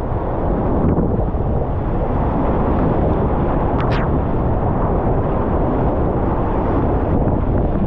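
Whitewater rapids rushing loudly and steadily close to the microphone, with water and wind buffeting it. A brief sharp higher sound stands out about four seconds in.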